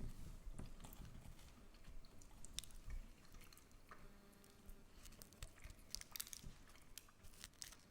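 Quiet close-up chewing of a mouthful of microwaved chicken fillet burger, with irregular small wet clicks and soft squishing as the bun and fillet are chewed.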